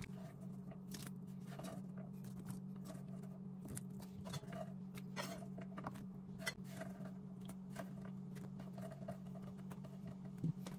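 Pan of chicken soup simmering on a cooktop: irregular small pops and ticks over a steady low hum.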